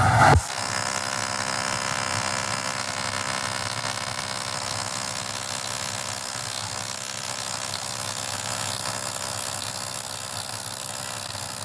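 AC TIG welding arc on aluminium, a steady buzz with a hiss.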